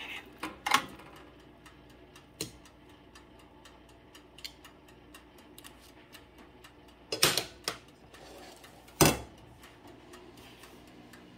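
A toaster oven's dial timer ticking steadily, with a few sharp clanks of metal tongs against the baking tray and a plate, the loudest about seven and nine seconds in.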